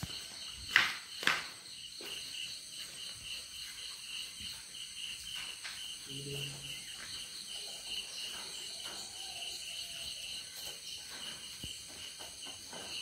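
Crickets chirping in a steady, fast-pulsing chorus, with two sharp knocks about a second in.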